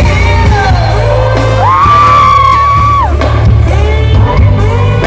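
Live pop and hip-hop concert music over a loud PA in an arena, with heavy bass, singing, and audience voices yelling along. A high voice holds one note for about a second mid-way.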